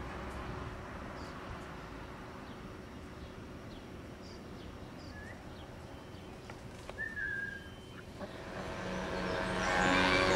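Outdoor ambience with a few short, scattered bird chirps. About eight seconds in, an engine's steady hum comes up and grows louder.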